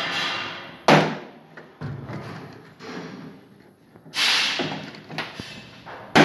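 Sharp knocks and clicks of metal inside a steel electrical panel enclosure as parts are handled on its DIN rails: two loud knocks, about a second in and near the end, with a short scrape around four seconds and lighter taps between.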